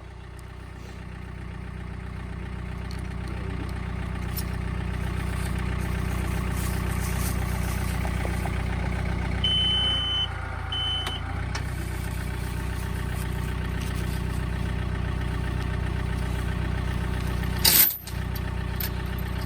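Tractor engine running steadily, growing louder over the first several seconds. Two short high beeps come about halfway through, and a single sharp knock comes near the end.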